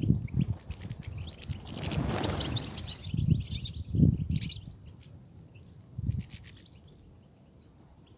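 European goldfinches twittering in quick high chirps, clustered about two seconds in and again around four and a half seconds. Low thumps and a brief rushing swell come through underneath.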